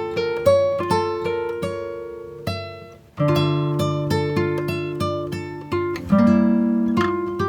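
Background music: acoustic guitar plucking a gentle melody over held bass notes, a few notes a second, with a brief pause a little before halfway.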